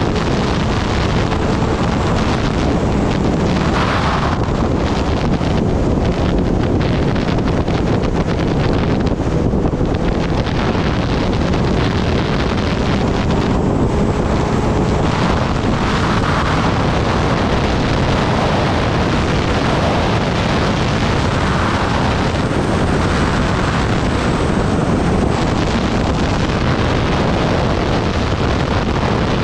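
Steady wind rushing over the microphone of a Kawasaki Ninja ZX-10R at riding speed, with the bike's engine running faintly underneath.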